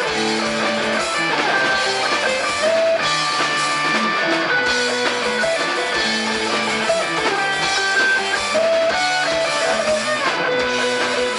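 Guitar-led band music with drums, an instrumental passage of a song with no singing.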